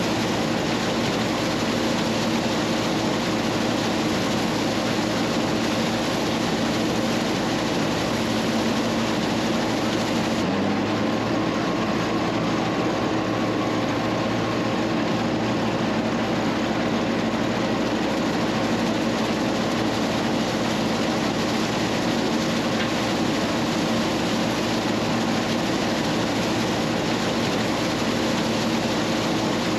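Combine harvester running steadily under load, a continuous engine hum over machinery noise. The sound changes abruptly about ten seconds in and turns duller.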